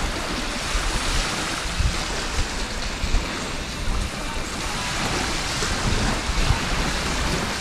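Steady rush of sea surf and wind, with gusts buffeting the microphone in low rumbles.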